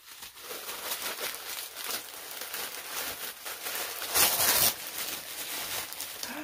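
A white mailer package being handled and opened: packaging rustling and crinkling, with a louder burst of crackling about four seconds in.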